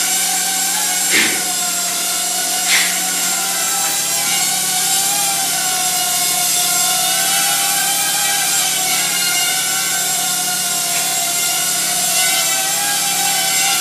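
Hubsan H107D X4 mini quadcopter's four coreless motors and propellers whining steadily in flight, the pitch wavering up and down as the throttle changes. There are two short knocks, about one and three seconds in.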